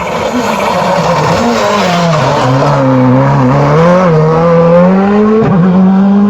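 Rally car engine getting louder as it comes into a hairpin: the engine note drops as it slows, then climbs as it accelerates out, with a gear change about five and a half seconds in.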